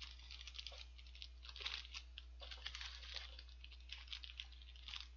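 Faint, irregular crinkling and rustling of a paper burger wrapper being handled, in small clusters of crackles.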